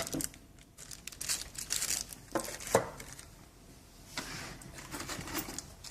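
Plastic packaging crinkling and rustling in irregular bursts as parts are handled and unwrapped, with one sharper click a little before halfway.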